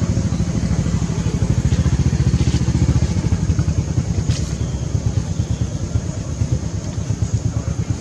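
A motor running steadily with a fast, even low throb.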